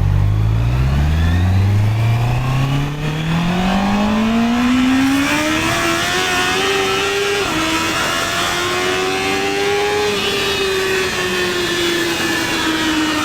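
Honda CB650R's inline-four engine pulling hard, its note climbing steadily for several seconds, dipping briefly about seven seconds in as it shifts up, rising again, then falling away slowly as the throttle eases. A hiss of wind on the action camera grows as speed builds.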